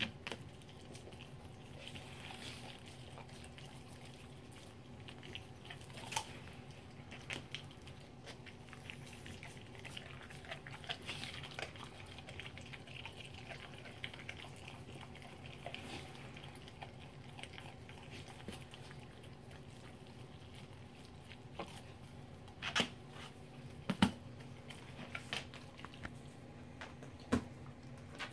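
Dog licking, mouthing and chewing at a whole raw trout: quiet wet smacking and small clicks, with a few sharper clicks near the end.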